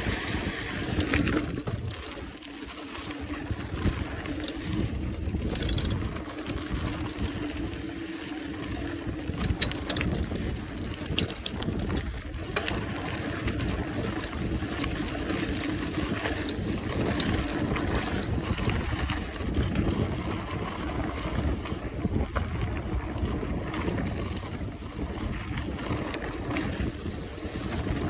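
Wind buffeting the microphone of a moving mountain bike, over the steady rumble of its tyres rolling on the road, with scattered clicks and rattles from the bike.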